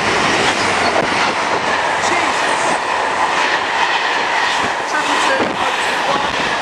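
GBRf Class 66 diesel-electric freight locomotive passing at speed, followed by a long train of hopper wagons running by with a steady rush of wheel noise and repeated clicks of wheels over the rail joints.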